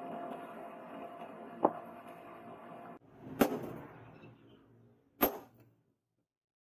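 A coal forge's air blower runs with a steady hum, with one light clink of tongs about a second and a half in, and then cuts off about three seconds in. Two sharp metal clanks with a short ring follow, about two seconds apart, as the red-hot leaf-spring blade in the tongs meets the steel anvil.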